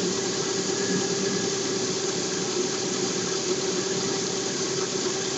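Lada Priora engine idling steadily with a constant whine over the running noise: the extraneous noise from the timing-belt assembly.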